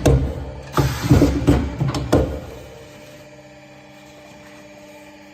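Automatic veneer patching machine working through a cycle: a burst of mechanical clatter with sharp clicks lasting about a second and a half, then only a low steady machine hum.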